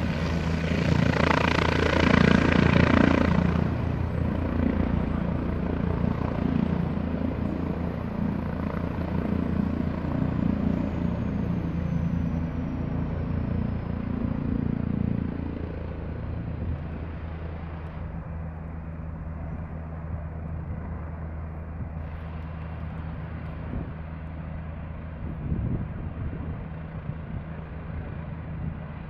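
Leonardo AW169 helicopter with twin Pratt & Whitney Canada PW210A turboshafts hovering low: a steady rotor beat with a high turbine whine, loudest in the first few seconds. It then grows quieter after about fifteen seconds as the helicopter moves off, the whine sliding down in pitch.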